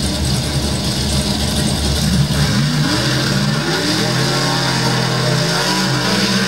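A car engine running at a low idle, then revved up about two seconds in, its pitch rising before holding steady at a higher speed.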